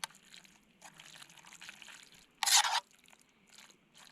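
Utensil stirring pasta in sauce in a metal camping pot: soft wet clicks and scrapes, with one louder, brief scrape about two and a half seconds in.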